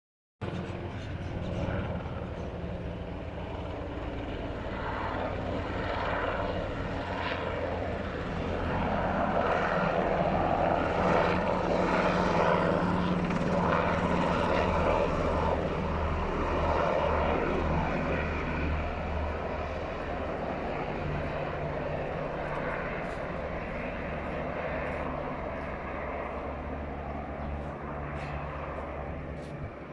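NH90 military helicopter in flight: a steady rotor and turbine drone that swells to its loudest around the middle and slowly eases off toward the end.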